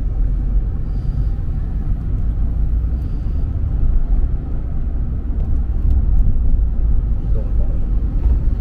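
Steady low rumble of a road vehicle in motion, loud and even.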